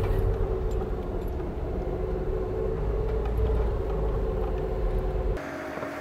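Lada Niva driving steadily on a dry, sandy forest track, heard from inside the cabin: an even engine drone over a low rumble from the road. About five seconds in the sound cuts off abruptly to a quieter, steady hum.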